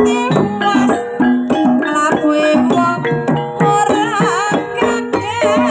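Banyumasan gamelan ensemble playing an uyon-uyon gending: kendang hand-drum strokes over a steady, repeating run of struck metal notes. In the second half a sinden's voice comes in with wavering, ornamented phrases.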